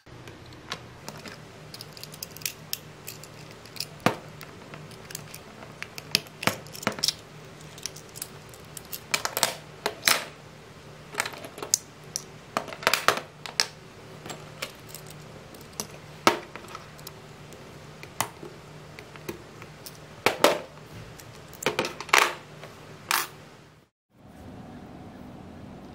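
Small diecast-metal and plastic parts of a 1:67 Toyota Hilux model clicking and tapping as they are pried apart, handled and set down on a wooden table: scattered sharp clicks at an irregular pace. The sound drops out briefly near the end.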